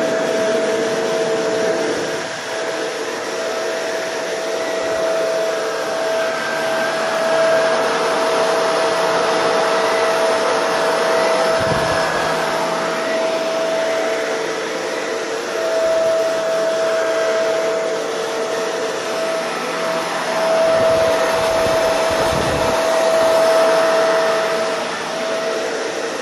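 Shark Rotator NV752 upright vacuum running on its thick-carpet setting while being pushed over a thick rug: a steady motor whine over rushing air. A few brief low rumbles come through partway along.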